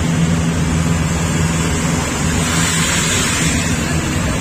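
A vehicle's engine running steadily with road and wind noise, heard from aboard the moving vehicle.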